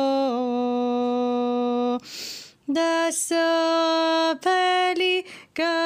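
A single voice sings one part of a Georgian church chant in long held notes that step up and down by small intervals. It breaks off briefly about two seconds in and again near the end.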